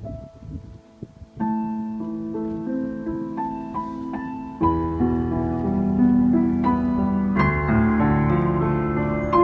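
Piano music: a slow melody of struck notes, joined by fuller low chords about halfway through.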